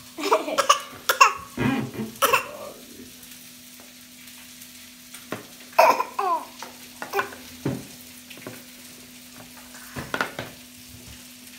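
A small plastic toy keyboard handled and knocked against a plastic high-chair tray: scattered clicks and knocks, a quick run of them at the start and more from about the middle on, with a few brief baby vocal sounds, over a steady low hum.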